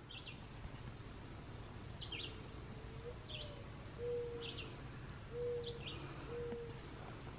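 Faint birdsong: short high chirps repeating about once a second, with a lower, briefly held note sounding four or five times in the middle, over a steady low background hum.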